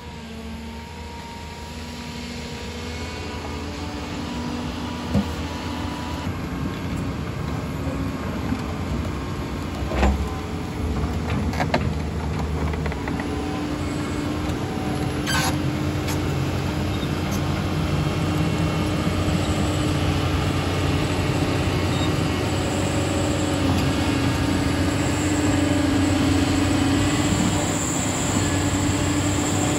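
Heavy diesel construction machinery running steadily and growing gradually louder, with a few sharp metallic clanks in the first half.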